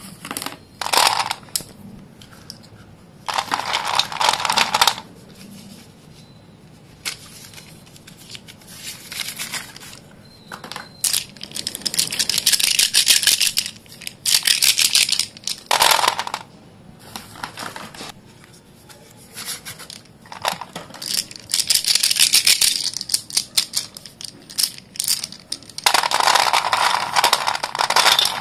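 Sticks of white dustless school chalk being crumbled and crushed by hand: bursts of dry, gritty crunching and crackling, a few seconds apart, with quieter pauses between.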